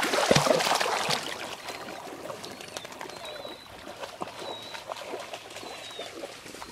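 A puppy splashing into a pond and swimming out to a floating retrieving bumper: loud splashing for about the first second, then quieter water sounds as it paddles.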